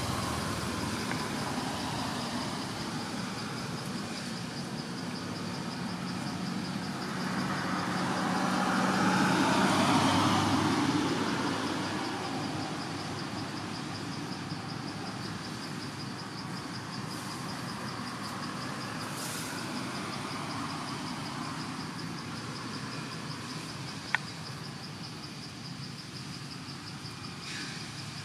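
Outdoor background noise with a steady high insect trill, over which a vehicle swells up and fades away between about seven and twelve seconds in. A single sharp click comes near the end.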